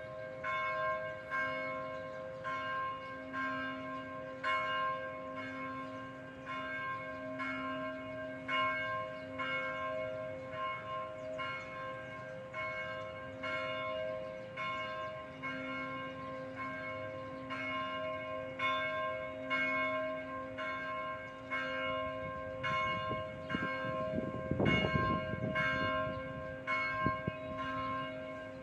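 Church bells ringing: quick, evenly spaced strokes, about three every two seconds, each leaving several ringing tones that carry on between strokes. A brief low rumble comes in near the end.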